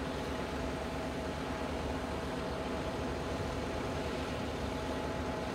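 Steady engine hum from the mobile crane's diesel, running at an even speed while it holds the lock gate on its chains.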